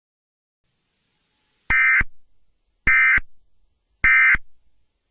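Emergency Alert System SAME end-of-message code: three short, identical buzzy data bursts about a second apart, signalling that the alert broadcast is over.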